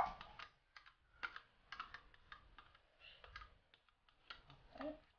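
Metal cutlery scraping and tapping against a plastic yogurt pot as the yogurt is spooned out into a plastic jug: a run of faint, irregular clicks and ticks.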